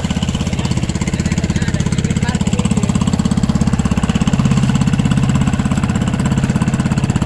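Small air-cooled pull-start engine of an outrigger fishing boat running steadily under way, a fast, even chugging.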